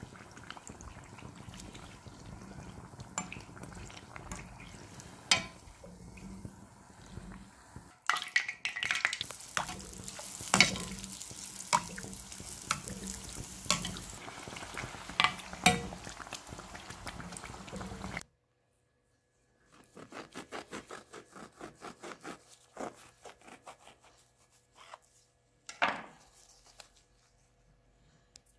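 Sesame-coated bread dough deep-frying in a pot of oil, sizzling and bubbling with scattered sharp pops. It gets louder and busier about a third of the way through, then stops abruptly. After that come faint quick clicks and a single knock near the end.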